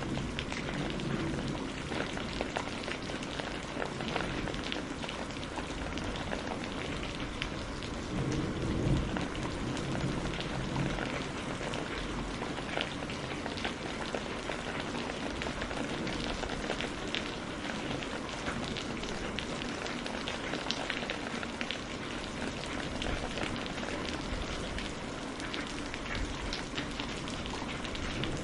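Steady rain falling, a continuous hiss with many individual drops ticking on a surface, and a low rumble swelling about eight seconds in.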